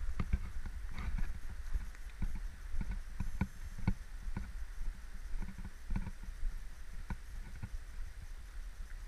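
A hiker's footsteps on a stony mountain trail, a steady walking rhythm of about two steps a second, over a low steady rumble.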